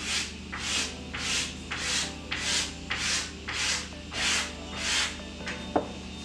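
Rhythmic rubbing strokes, about two a second, then a single sharp knock of wood on wood near the end.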